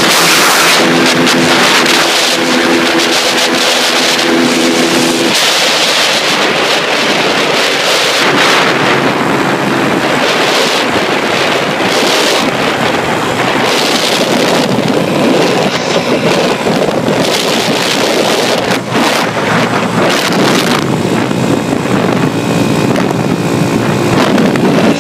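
Yamaha Y135LC moped's 135 cc single-cylinder four-stroke engine running hard at high speed, with heavy wind buffeting the microphone. The engine's steady note stands out in the first few seconds and again near the end, and the wind rush covers it in between.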